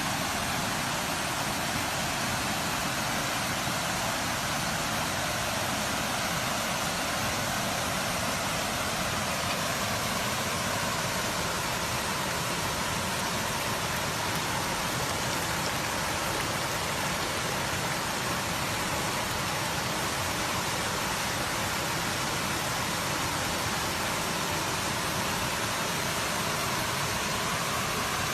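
Steady rushing of a waterfall, an even unbroken roar of falling water.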